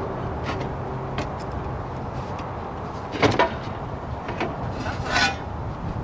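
Clay roof tiles knocking, clinking and scraping against each other as they are handled and set in place. There are a few light clicks, a louder clatter about three seconds in and a scraping rattle about five seconds in, over a steady low background rumble.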